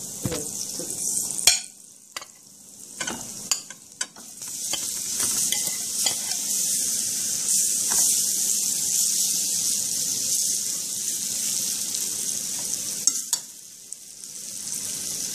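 Curry-seasoned prawns frying in hot oil in a pot, with a steady sizzle that builds up about four seconds in. A metal spoon stirs them and knocks against the pot several times near the start.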